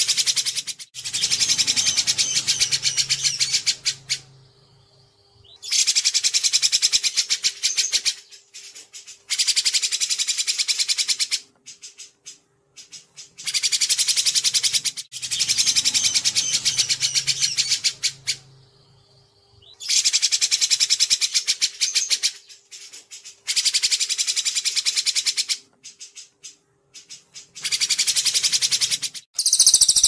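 Small songbird giving rapid-fire bursts of fast, repeated high notes, each burst one to three seconds long, separated by short pauses. A faint steady hum runs underneath.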